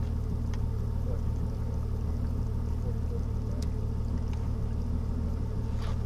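Steady low hum from the bass boat's motor running while the boat holds position, with a few faint clicks over it.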